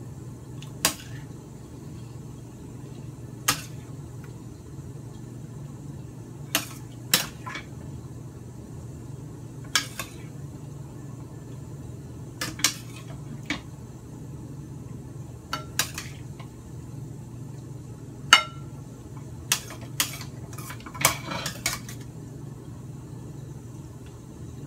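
Metal spatula clanking and scraping against a metal wok while scooping the stir-fry out of the pan, with sharp clanks at irregular intervals, several close together near the end.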